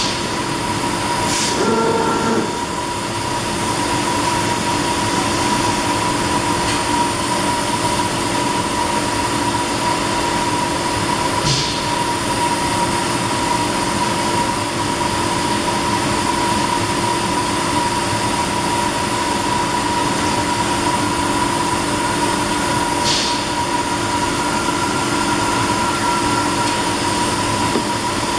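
Bystronic BySprint 3015 CO2 laser cutting machine running: a steady machine hum with a steady whine. Short hisses come about a second in, near the middle and about three-quarters through.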